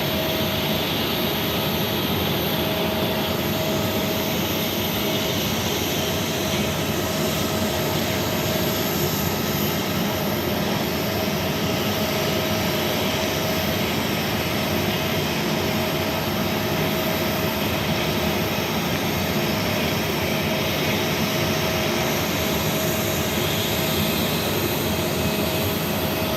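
Jet airliner engines running steadily at taxi power, a constant drone with a faint steady whine through it.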